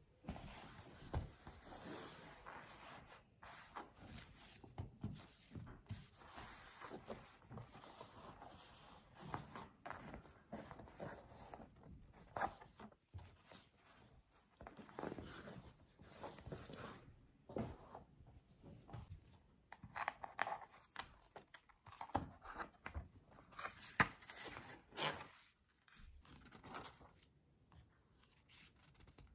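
Close-up handling sounds of a cotton tote bag being unpacked: irregular rustling and crinkling with small taps and clicks. Near the end the sounds thin out to the quieter handling of an open spiral notebook.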